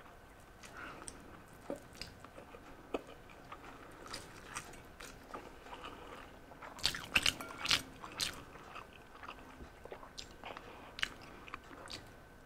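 Close-up mouth sounds of someone eating Samyang spicy instant noodles: chewing with wet smacks and clicks. A louder cluster of noisy slurps comes about seven seconds in as strands are sucked in.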